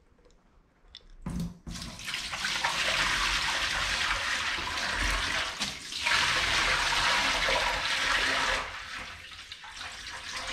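Water poured from a bucket into a stainless steel kitchen sink bowl, splashing and running for about seven seconds with a short break midway, then trailing off. A knock comes just before the pouring starts.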